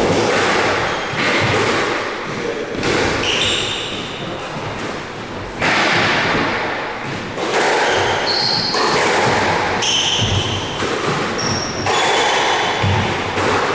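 Squash rally: the small rubber ball struck by rackets and smacking off the court walls about once a second, each hit echoing in the enclosed court, with short high sneaker squeaks on the floor between hits.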